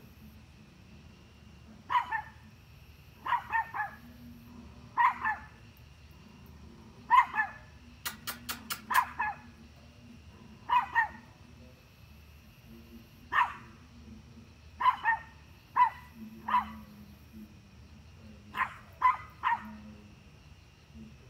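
Small dog barking at a deer with high, sharp barks in short bursts of one to three, with pauses of a second or two between bursts. About eight seconds in there is a quick run of small yips.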